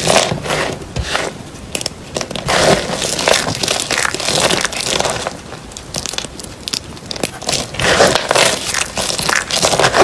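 A blade cutting through dry bar soap, crunching and crackling in several bouts of cutting.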